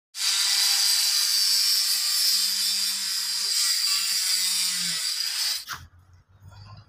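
Small corded handheld power cutter with a spinning disc cutting a plywood sheet along a straightedge guide: steady cutting noise with a high whine through it, which stops suddenly about a second before the end.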